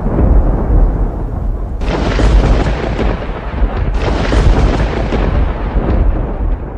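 Loud, continuous rumbling noise with a heavy bass end, growing brighter and harsher suddenly about two seconds in and again about four seconds in.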